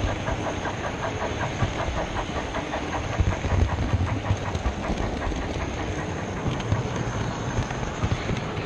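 Model train running on a model railway layout: a steady low rumble of wheels on the track, with a quick, regular clicking over it.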